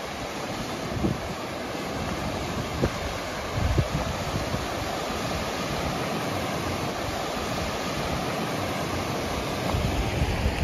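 Steady rushing of a fast mountain river, with a few brief low thumps.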